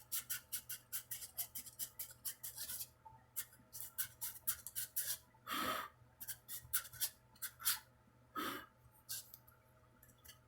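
Sandpaper rubbed by hand along a wooden guitar neck: quick back-and-forth strokes, about five a second, then slower and longer strokes, stopping shortly before the end.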